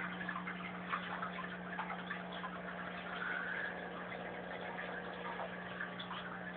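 Aquarium filter on a turtle tank running: a steady motor hum with water trickling and bubbling, and small ticks.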